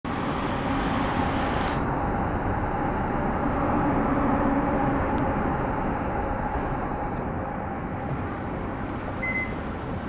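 Road traffic noise, with a motor vehicle's engine running steadily under it; the sound eases off slightly in the second half.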